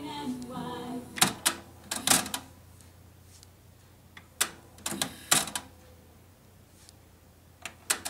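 Sharp clicks and clunks from the buttons and tape mechanism of a Philips FC920 cassette deck being operated by hand. They come in small clusters: several between one and two and a half seconds in, a few more between four and a half and five and a half seconds, and a couple near the end.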